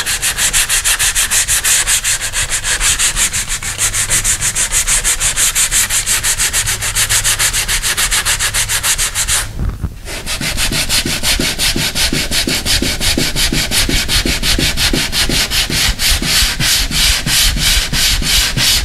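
Sandpaper on a hand sanding block rubbed over a partly set filler patch on a steel door, in rapid back-and-forth strokes. The strokes stop briefly about halfway through, then resume. The edges of the patch are being feathered down flush with the door.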